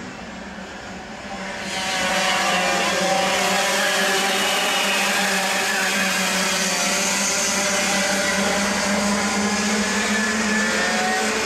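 A pack of two-stroke racing kart engines running at high revs, several engine notes overlapping. It gets much louder about two seconds in as the karts come close.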